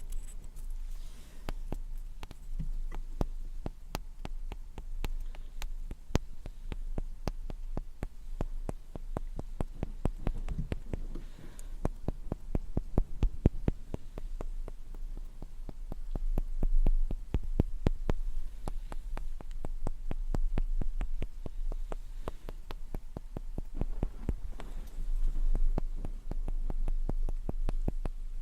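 Fingertips and nails tapping on a wooden object, many quick light taps in irregular runs, over a steady low hum.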